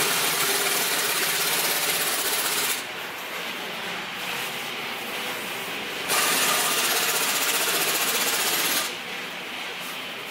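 Impact wrench hammering in two bursts of nearly three seconds each, with a pause of about three seconds between, running in the mounting bolts of an excavator final drive.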